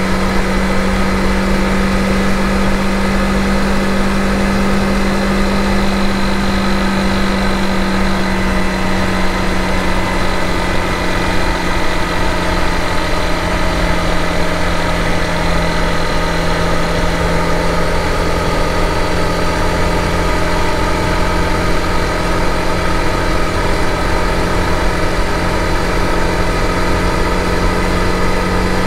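Honda CRF250 Rally's single-cylinder engine running steadily at expressway cruising speed, with a constant low rumble. Its note drops slightly about ten seconds in and rises again near the end.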